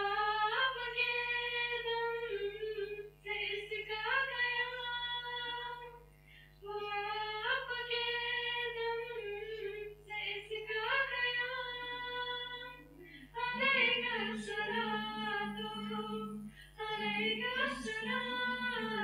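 Girls' voices singing an Urdu nazm without instruments, in phrases of about two to three seconds with short pauses for breath between them. A second, lower voice joins from about two-thirds of the way in.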